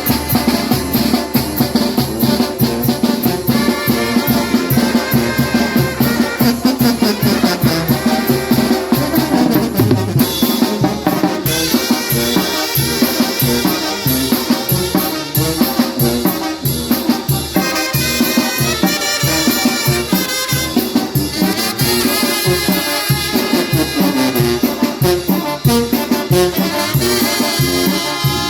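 Latin dance music with a driving drum and percussion beat and a trumpet playing the melody over it.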